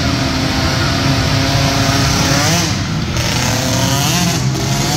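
Several small 50–90cc youth ATV engines racing on a dirt track, the pitch rising and falling twice as riders come off and back on the throttle, once near the middle and again near the end.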